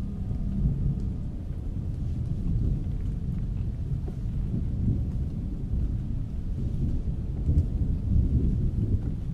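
Low, continuous rumble of thunder that swells and fades, loudest about eight seconds in, with a faint patter of rain above it.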